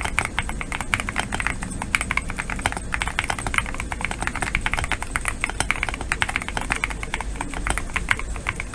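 Typing on a GMK67 gasket-mount mechanical keyboard with Gateron Queen switches and PBT keycaps: rapid, continuous keystroke clacks at an even volume.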